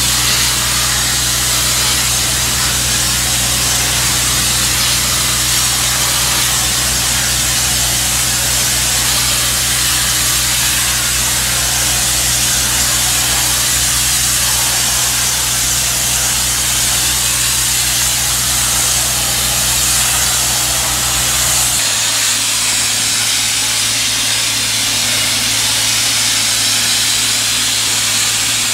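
Steady, loud hiss of a high-pressure steam jet from the lance of a Ghibli DHR 8 mobile steam generator, over a steady low hum from the machine. The hum changes pitch and character about three quarters of the way through.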